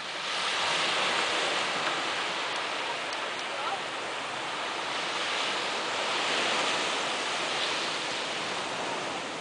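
Small sea waves breaking and washing up a sandy beach, a steady hiss of surf that swells twice, once about a second in and again about two-thirds of the way through.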